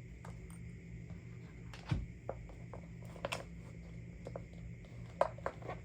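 Small items being handled and taken out of a handbag: scattered light clicks and knocks, with a low thump about two seconds in and a quick run of taps near the end, over a steady low hum.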